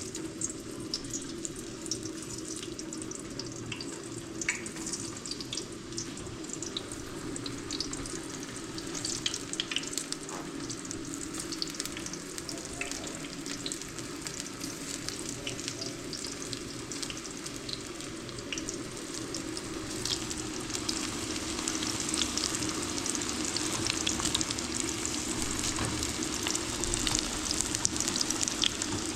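Steady sizzling and crackling with many tiny pops, like food frying in hot oil, growing louder in the last third.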